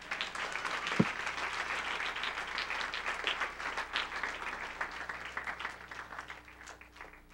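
Congregation applauding: many people clapping together, the clapping thinning out and dying away near the end. A single thump about a second in.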